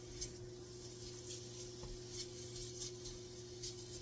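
Spatula stirring chicken pieces in a nonstick frying pan: several short, soft scrapes and faint sizzling over a steady low hum.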